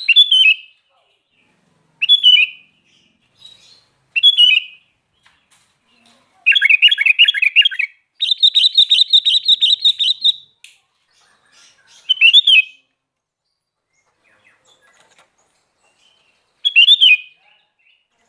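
Sooty-headed bulbul (kutilang) singing: short bright whistled phrases every couple of seconds, and in the middle a longer run of rapid chattering notes, about six a second.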